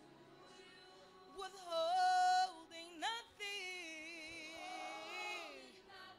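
Slow worship music: a singer holds long, wavering notes over sustained keyboard chords.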